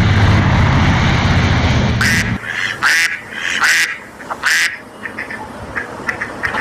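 Ducks quacking: four loud quacks about a second apart, then softer ones. Before them, a steady low rumble cuts off suddenly about two seconds in.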